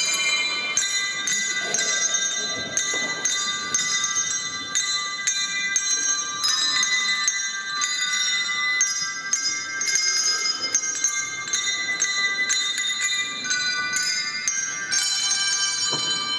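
Handbell ensemble playing a tune in chords, many bells struck in quick succession and ringing over one another, with a fuller chord struck near the end.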